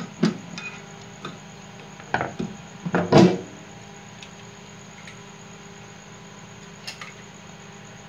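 Metal knocks and clatters as a microwave oven's magnetron is worked loose and lifted out of the oven's metal chassis. The loudest knocks come in a cluster about two to three seconds in.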